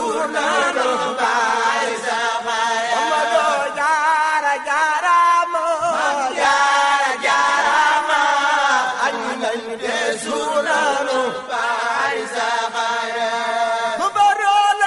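A group of voices chanting a Mouride devotional song in unison, with a wavering, ornamented melody and short breaks for breath.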